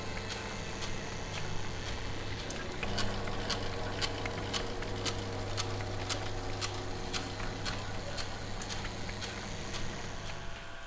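Kinetic art machines running: a steady electric hum with sharp mechanical clicks and ticks, two or three a second, at uneven spacing.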